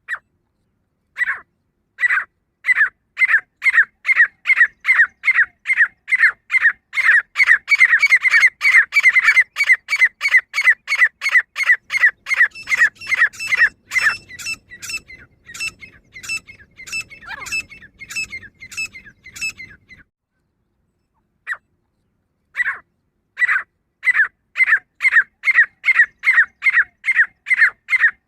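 Female grey francolin calling: a long series of short, sharp notes at about two a second, coming faster and louder in the middle, then fading. After a pause of a couple of seconds near the end the series starts again.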